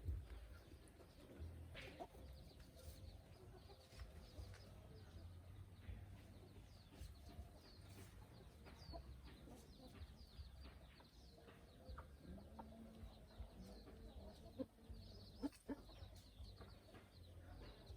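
Faint clucking of chickens, with scattered small clicks over a low rumble.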